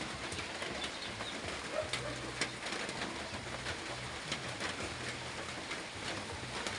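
Doves cooing in short, low, repeated phrases, over a steady hiss. Light clicks and scrapes of a kitchen knife peeling the skin off a mango.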